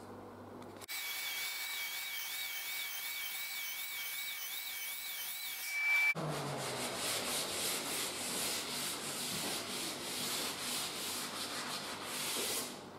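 Electric belt sander running along the edge of a clear-coated hardwood door, taking out the pitch marks left by the power planer. It starts about a second in with a steady high whine, then turns abruptly harsher about six seconds in, with a fast regular flutter, and stops shortly before the end.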